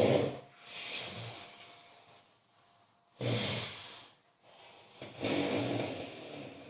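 A man snoring loudly in his sleep: a run of snores and breaths with short quiet gaps between them, the strongest starting abruptly about three seconds in and another about five seconds in.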